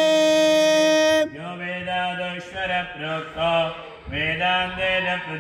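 Male voice chanting Sanskrit Vedic mantras: one syllable is held on a steady note for just over a second, then the recitation goes on in short phrases that rise and fall in pitch. A steady low hum runs underneath.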